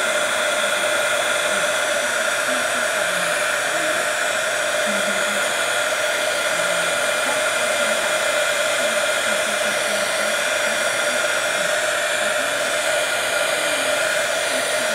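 Handheld hot-air blower (heat gun / hair-dryer type) running steadily on high, a constant rush of air with a fixed motor whine, drying wet watercolour paint.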